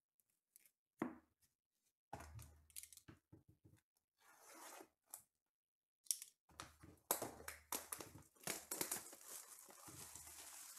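Plastic shrink-wrap on a sealed box of trading cards being cut with a box cutter and torn off, crinkling and tearing in irregular bursts that turn almost continuous in the second half. A single knock about a second in.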